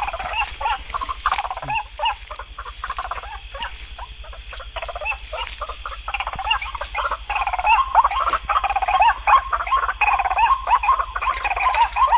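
A chorus of many frogs croaking in rapid, overlapping calls, getting louder and denser about halfway through.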